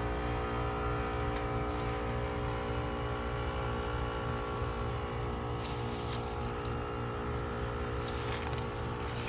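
Heat pump outdoor unit running: a steady compressor hum made of several steady tones over a fluttering low rumble.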